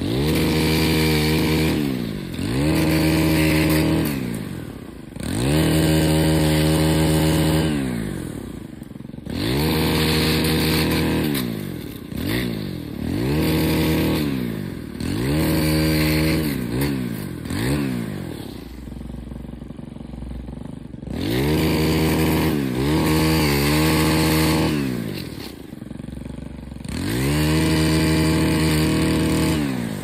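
Small two-stroke engine of a gas pole saw revving up hard and dropping back to idle, over and over every two to three seconds as it cuts branches, with a longer stretch of idling about two-thirds of the way through.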